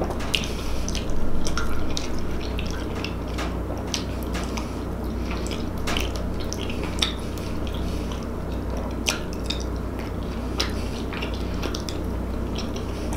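Eating sounds: wet chewing and mouth smacks, with scattered light clicks of wooden utensils against the dishes, over a steady low hum.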